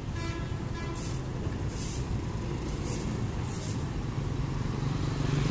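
City street traffic: motorbike and car engines running, the rumble growing louder near the end as the bikes come closer, with a few short hissing swishes on top.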